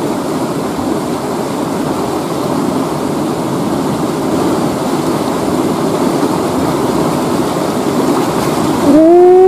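Rushing river water flowing over rapids: a steady, even rush. Near the end a man's short, loud vocal sound rises in pitch and holds.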